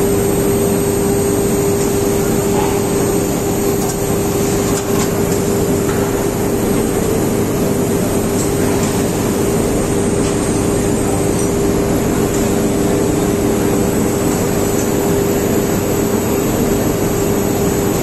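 Steady, loud industrial drone with one constant mid-pitched hum from a 35-tonne induction melting furnace installation as its crucible tilts to pour.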